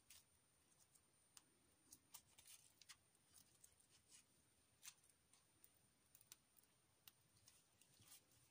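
Near silence, with faint scattered clicks and rustles from hands winding floral tape around a wire stem.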